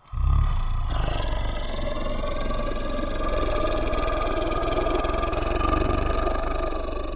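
A monster roar sound effect: one long, deep roar that starts suddenly, with a heavy rumble underneath and a steady pitched tone on top, held for about seven seconds before it dies away.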